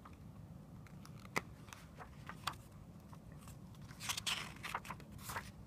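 Paper pages of a picture book being handled and turned: a few faint ticks, then a short paper rustle about four seconds in as the page flips over.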